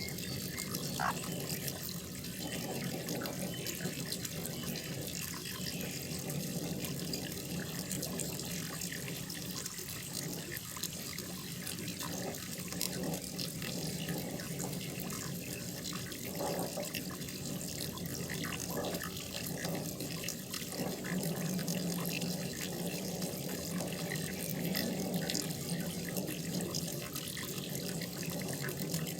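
Water running and splashing steadily into a koi pond, with many small splashes.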